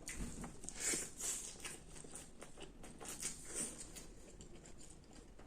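Close-up chewing of crunchy cabbage salad: a string of crisp crunches and mouth clicks, strongest about a second in.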